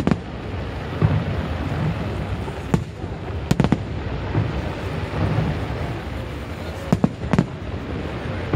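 Fireworks shells bursting overhead: about seven sharp bangs at irregular intervals, including a close pair about three and a half seconds in and another near seven seconds, over a continuous background din.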